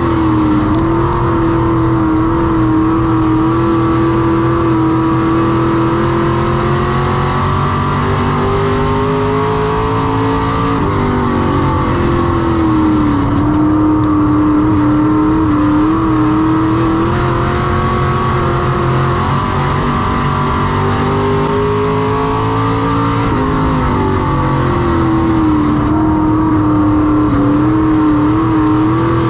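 Semi Late Model race car's V8 engine running hard at racing speed. Its pitch climbs slowly for about ten seconds and then drops off sharply as the throttle comes off; this happens twice.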